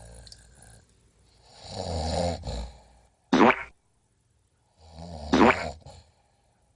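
A person snoring in a strange way: a rattling snore, then a loud, sharp whistle that falls steeply in pitch, repeated twice.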